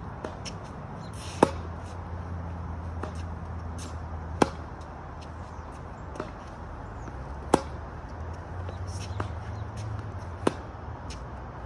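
Tennis balls struck by rackets in a rally: a loud, sharp hit about every three seconds from the near player, with fainter hits from across the net in between. A steady low hum runs underneath.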